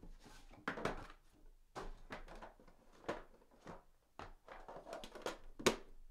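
Scattered rustling, clicks and taps of a sealed trading-card box being opened and its cards handled, with a few sharper snaps.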